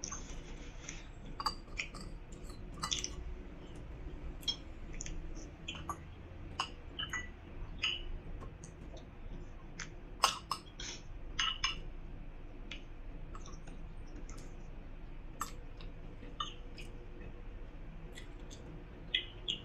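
A person eating: chewing, with scattered short clicks and clinks of a metal spoon and fork against a bowl.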